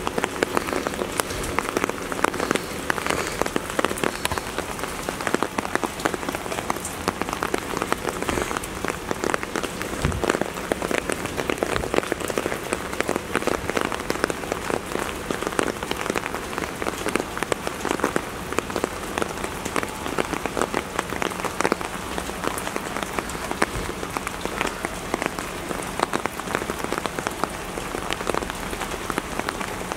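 Steady rain falling, with many close drops striking in quick, irregular clicks.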